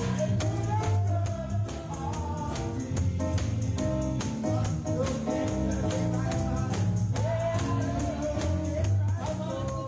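Live gospel worship music: a band with a steady bass line and a tambourine keeping the beat, with singing voices carrying the melody of the chorus.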